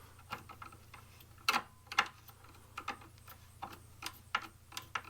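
Irregular sharp clicks and taps of a screwdriver and wire against the metal of a breaker panel as a terminal screw is tightened, over a faint low steady hum.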